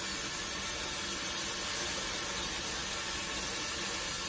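Steady hiss and sizzle as hot water is poured slowly from a skillet into a hot pan of browned liver and onions, throwing off steam.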